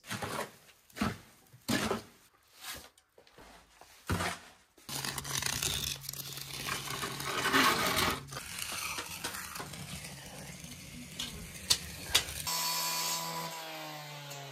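Concrete work: a run of separate scrapes and knocks, then a steady low hum under rough scraping as wet concrete is troweled smooth in its form. About twelve seconds in, a cut-off saw's motor comes in and winds down, its pitch falling.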